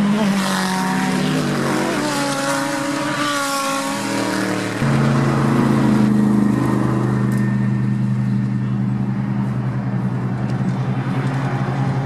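GT3 race car engines. In the first few seconds cars accelerate away with gliding, changing engine notes over tyre and wind hiss. About five seconds in the sound changes suddenly to a race car passing close with a steady, even engine note that holds to the end.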